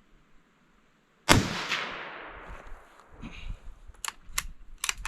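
A single shot from a Savage 93R17 bolt-action rifle in .17 HMR, firing a 17-grain Hornady V-MAX round, a sharp crack about a second in that dies away over the next second or so. A few short sharp clicks follow near the end.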